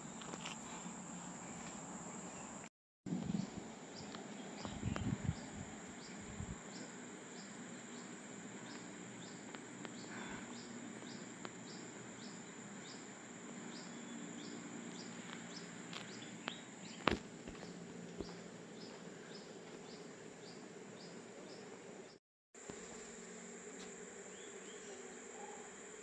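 Tropical forest insects: a steady high-pitched buzz, with a regular high chirp repeating a little faster than once a second through the middle. A few soft knocks come early on, and there is a sharp click partway through. The sound cuts out briefly twice.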